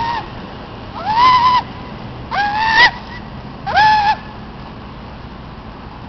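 Goose-like honking calls, about four in a row, one roughly every 1.3 seconds, each a short nasal honk that rises, holds and drops. They stop a little past halfway through.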